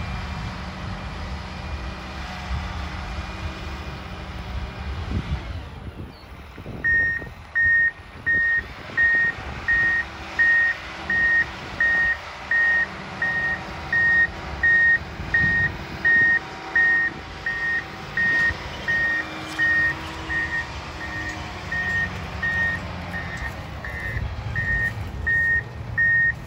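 John Deere motor grader's diesel engine running, then from about seven seconds in its backup alarm beeping steadily at about one and a half beeps a second while the engine keeps running: the grader is reversing.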